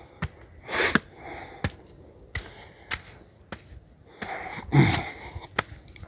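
Footsteps climbing concrete steps, about one step every two-thirds of a second, with heavy breathing from the climber: a puff of breath about a second in and a short low vocal sound near the end.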